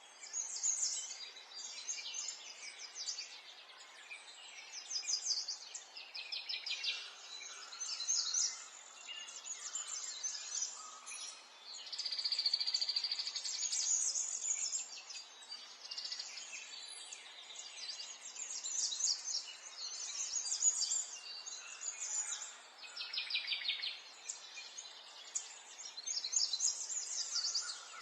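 Several songbirds chirping and trilling in quick, overlapping phrases, with one longer held whistle about halfway through, over a faint steady hiss.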